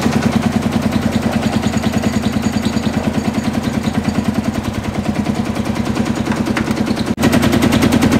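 Vintage tractor's hot-bulb engine running, beating out a fast, even string of pops, about ten a second. The sound breaks off briefly about seven seconds in and comes back louder.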